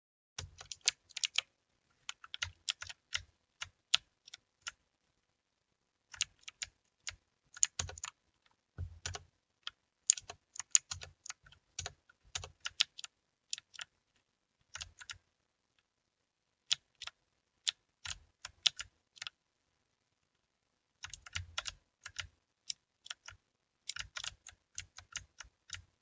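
Typing on a Redragon mechanical keyboard: rapid keystrokes in bursts, stopping for a second or two several times between runs.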